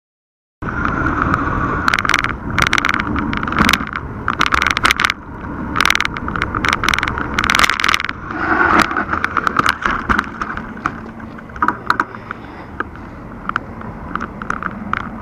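Mountain bike's handlebar-mounted action camera rattling and clattering as the bike rides over street pavement, under a steady rush of road noise. Dense runs of sharp clicks come with the bumps, most of all in the first half, and thin out later.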